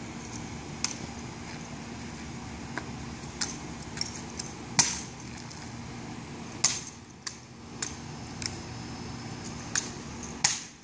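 Sharp slaps and clacks of hands catching and striking an M1903A3 Springfield drill rifle with fixed bayonet during exhibition spins and tosses, about a dozen at uneven intervals, the loudest about five seconds in, over a steady low hum.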